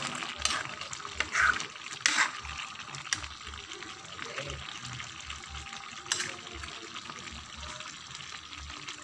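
Chicken caldereta simmering in a pan, a steady bubbling hiss of the sauce as the dish nears done. A few sharper scrapes or knocks come in the first three seconds and again about six seconds in.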